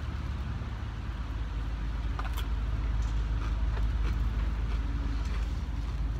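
Low steady rumble of road vehicles, growing a little louder about halfway through, with a few faint clicks.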